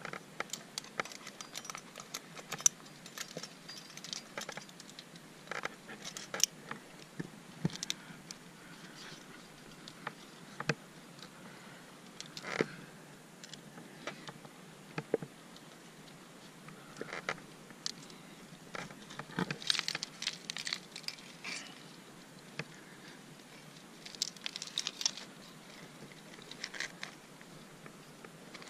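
Metal climbing gear clinking: carabiners and protection jangling on a trad rack, in scattered short clicks and brief jingles with quiet gaps between.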